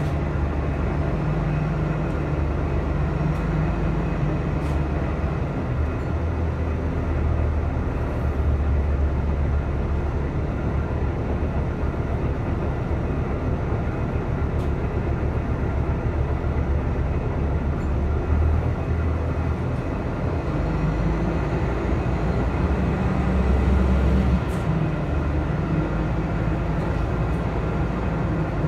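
City transit bus heard from inside the passenger cabin: a steady low engine drone and road rumble that swells and eases as the bus moves slowly along, with a few faint clicks and rattles.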